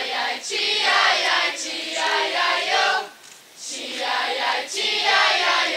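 A mixed group of young voices singing together in chorus, in two long phrases with a brief break about three seconds in.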